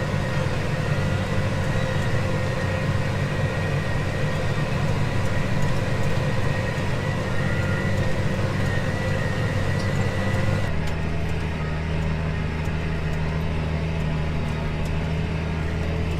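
Farm tractor's diesel engine running steadily under load while pulling a tillage disc, with a thin steady whine above the engine drone. About ten seconds in the sound changes abruptly to a smoother, lower engine drone.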